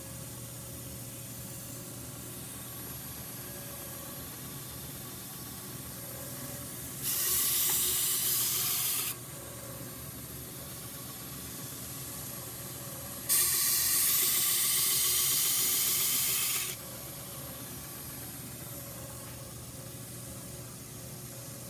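A hedge-shear blade being ground on a running belt grinder: two grinding passes, a short one about a third of the way in and a longer one past the middle, each a loud, hissing rasp of steel against the abrasive belt. The grinder's motor hums steadily between the passes.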